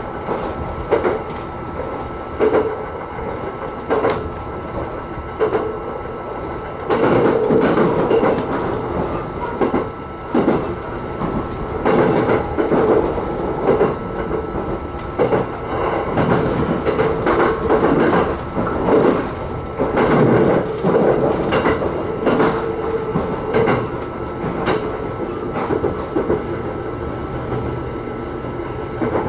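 E129 series electric multiple unit running at speed between stations: a steady running rumble with the wheels knocking over rail joints in irregular clusters, louder and busier from about seven seconds in.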